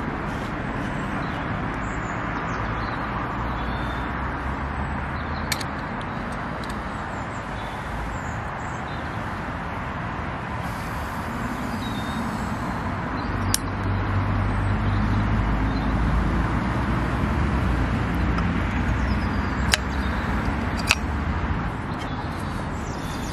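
Steady road traffic going round the roundabout. A deeper engine rumble swells about halfway through and holds for several seconds. A few light, sharp clicks come through on top.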